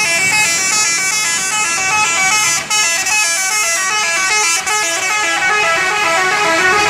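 A bus's telolet horn, a multi-tone musical horn, plays a fast melody of quickly stepping notes without pause, with two brief breaks about two and a half and four and a half seconds in.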